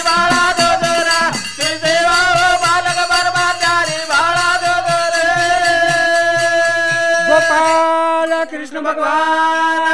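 Banjara (Lambada) folk singing: a held, wavering melody line over a steady drum beat and jingling percussion. The percussion stops about eight seconds in, leaving a sustained note.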